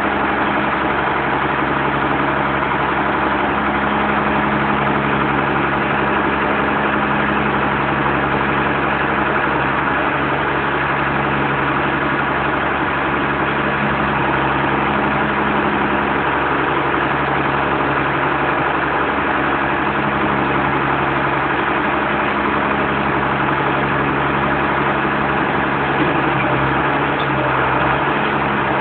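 Engine of a Chisholm Ryder Multi Density self-propelled bean harvester running steadily, a constant loud mechanical drone with a steady low hum.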